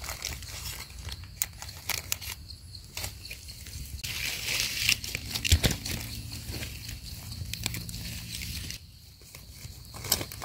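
Dry leaf litter rustling and crackling with scattered small snaps as a hand digs through it and pulls mushrooms out of the forest floor.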